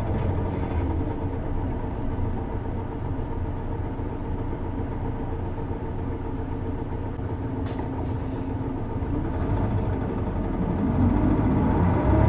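Isuzu Erga city bus's six-cylinder diesel engine heard from inside the bus while driving. The engine note eases off, then climbs again near the end as the bus accelerates.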